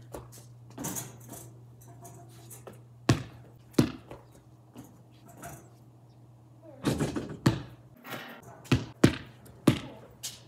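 Basketball bouncing on a concrete driveway: two sharp bounces about 3 and 4 seconds in, then a quick run of bangs and thuds from about 7 seconds on.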